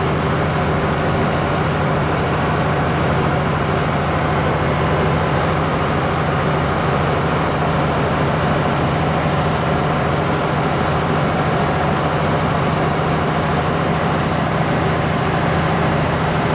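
Diesel engine of a loaded semi-truck heard from inside the cab, a steady low drone mixed with road noise while cruising along.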